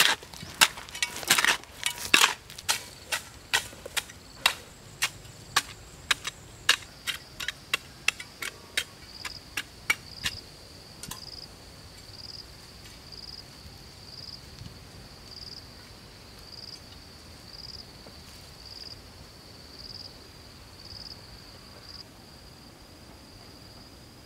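A small metal digging tool chopping into hard-packed red clay in sharp, quick strikes, about two a second, growing fainter and stopping about ten seconds in. Behind it an insect keeps up a steady high buzz that pulses about once a second.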